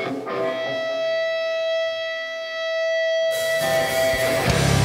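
Electric guitar holding one ringing note as a metal song opens. Cymbals come in about three seconds in, and the full band with drums, bass and distorted guitars crashes in near the end.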